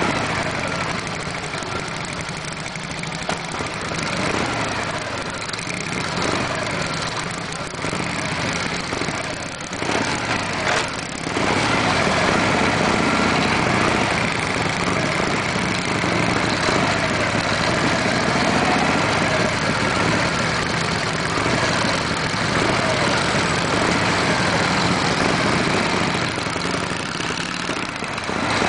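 Vintage Indian motorcycle engines running at a stop, then pulling away. The sound gets louder about twelve seconds in and stays that way as the bikes ride off.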